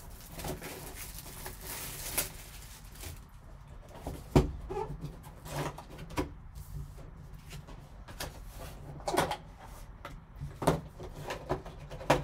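Plastic shrink-wrap crinkling as it is torn off a cardboard trading-card box. Then comes the rustle and handling of the box being opened, with separate sharp knocks and clicks, the loudest about four seconds in.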